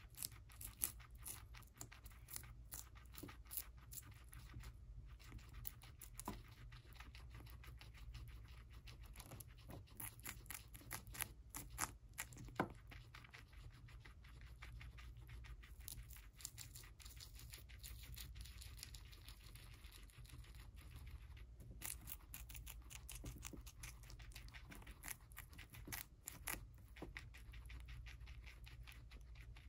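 Guinea pigs biting and chewing celery stalks: quick, crisp crunches and snaps, coming thick at times and thinning out for a few seconds in the middle.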